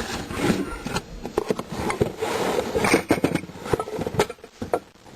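Packages and containers being handled and shifted around in a kitchen cabinet: a string of knocks and clicks, with rustling about two to three seconds in.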